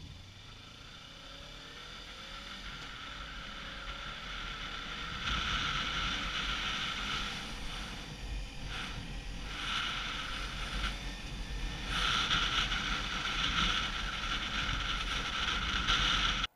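Wind rushing over a helmet-mounted camera on a moving Kawasaki Ninja 300, with the bike's engine running faintly beneath. The noise builds over the first few seconds as the bike gathers speed, then swells and drops back in surges.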